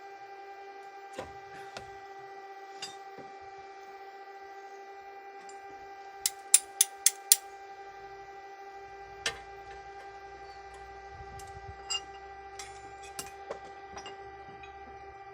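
A steady pitched hum with scattered sharp clicks and knocks over it, including a quick run of five loud clicks, about four a second, midway through.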